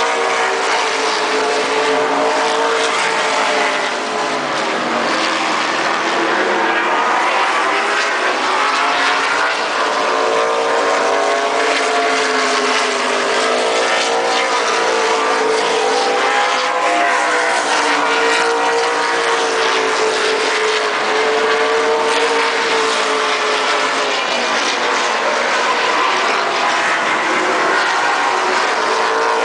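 Race car engines running on the track, their pitch rising and falling again and again as the cars accelerate and lift.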